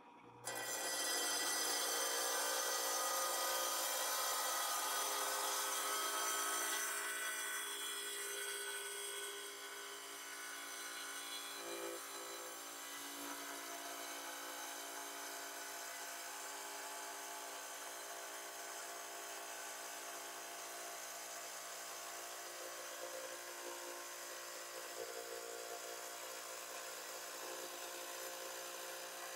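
Small diamond-blade saw cutting a geode, the stone held by hand against the spinning blade: a steady high whine with grinding that starts abruptly about half a second in. It is louder for the first several seconds and settles a little quieter from about seven to ten seconds in.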